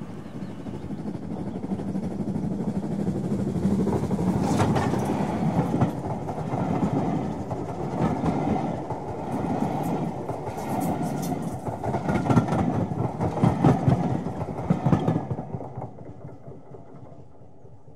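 A passenger train passing: a steady rumble that builds over the first few seconds, with wheels clacking over rail joints, then dies away near the end.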